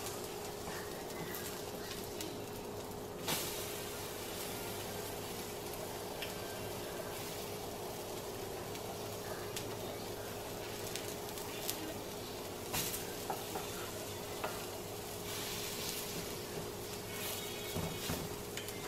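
French toast sizzling steadily in butter on a stovetop griddle pan, under a faint steady hum. A slotted spatula clicks against the pan a few times, most sharply about 3 seconds in and again about 13 seconds in.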